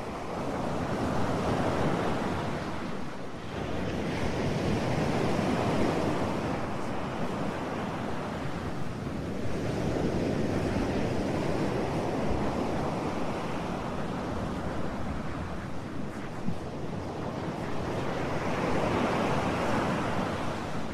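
Ocean surf: waves washing in and drawing back, rising and falling in slow swells a few seconds apart.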